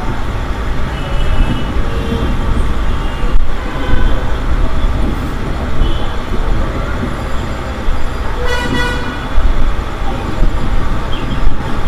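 Street traffic noise with vehicle horns tooting now and then, one horn sounding briefly about two-thirds of the way in.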